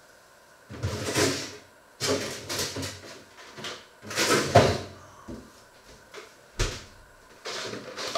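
Rummaging in a low kitchen cupboard: several irregular bursts of knocking and rustling as items are moved, with a single sharp knock about six and a half seconds in.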